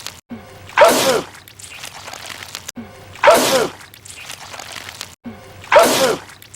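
A man's loud sneeze, the same one looped three times about two and a half seconds apart, each ending in a falling-pitched 'choo' and each cut in after a brief dropout to silence.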